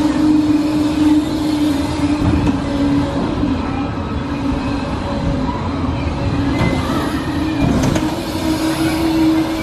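A Soriani & Moser Sombrero spinning ride running, its drive giving a steady mechanical hum over a low rumble. The hum weakens in the middle and grows stronger again near the end.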